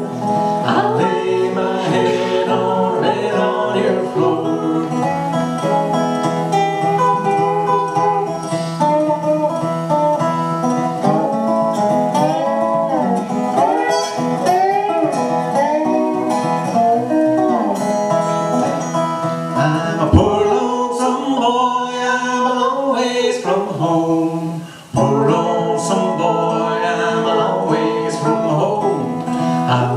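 Live country-blues music on a resonator guitar, played without words as an instrumental stretch of the song, with gliding notes and a brief drop in level near the end.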